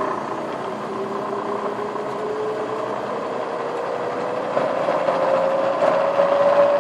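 Milling machine running and being sped up, its whine rising slowly and steadily in pitch and getting a little louder toward the end, as it spins a 1955 Cadillac speedometer on the bench.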